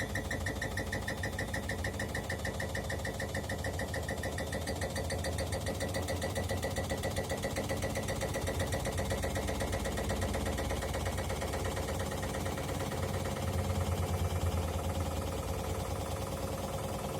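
Bosch Maxx 5 front-loading washing machine on its spin cycle, the drum drumming in a fast, even rhythm as the machine shakes, slightly louder about two-thirds of the way through. The owner has fitted new shock absorbers and suspects the suspension springs, the drum bearings or a worn drum spider (the triangle).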